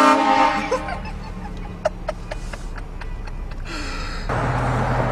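Train horn blasting a loud chord of several steady notes that cuts off about a second in, followed by quiet snickering laughter.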